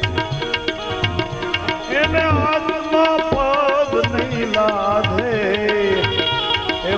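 Devotional bhajan music: tabla keeping a steady beat under a melody line that bends and glides in pitch.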